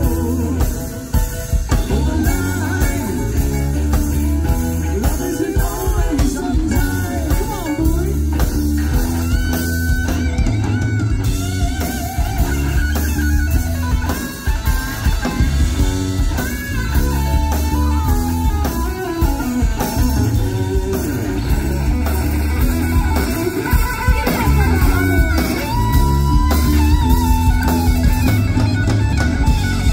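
A live yacht-rock band playing loud: electric guitar, bass and drum kit keeping a steady beat, with singing over it.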